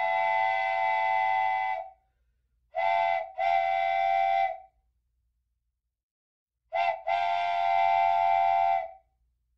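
Multi-note train whistle blown in a signal pattern: one long blast, then a short and a long blast, then another short and a long blast, each held on a steady chord.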